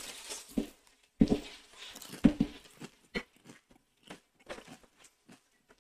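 Chicken feet being bitten and chewed, the small bones and cartilage crunching: two loud cracks about a second and two seconds in, then a run of smaller, quicker crunches.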